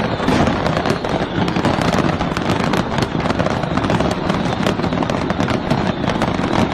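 Fireworks going off in a dense, continuous crackle of many sharp bangs each second, with no let-up.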